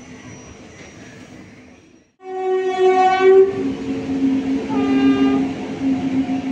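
Indian Railways electric locomotive sounding its horn as it approaches: a blast of about a second and a half, then a shorter second blast, over the locomotive's steady hum. The horn starts abruptly about two seconds in, after faint outdoor background and a momentary break in the sound.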